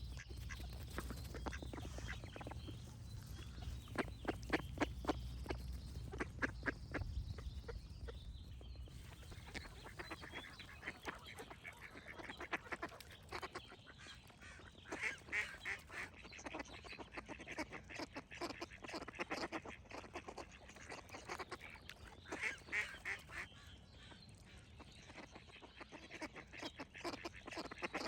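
Ducks quacking in runs of quick, repeated calls, with pauses between the runs. A low rumble underneath stops about a third of the way in.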